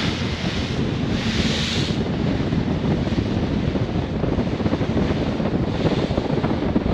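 Strong wind buffeting the microphone on the bow of a moving boat, surging in gusts at the start, about a second and a half in and near the end, over a steady rush of water.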